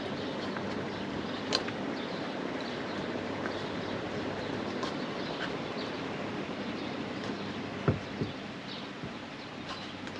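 Steady outdoor background noise with a few faint clicks and a short low knock about eight seconds in, from rubber balls being picked out of a plastic jar and handled for loading into a rubber-ball defence pistol.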